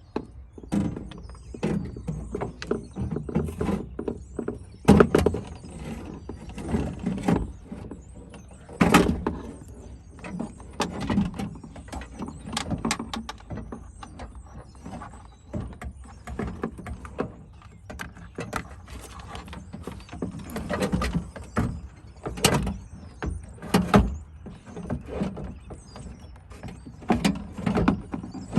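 Replacement power-window regulator assembly for a Dodge Caravan being worked into the door cavity: irregular clunks, knocks and scrapes of metal against the door's sheet metal, with a few louder bangs.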